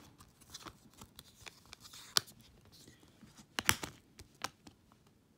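Clear plastic Blu-ray case being handled while a disc is pried off its centre hub: scattered plastic clicks and rattles, with a sharp snap about two seconds in and a few more just before four seconds.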